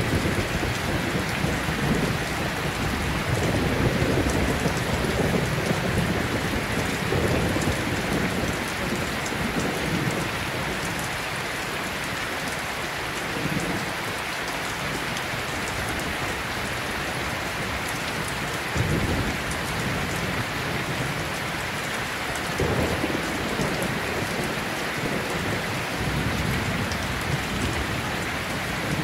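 Steady rain with low rolls of thunder, the heaviest rumbling a few seconds in and shorter rolls later on.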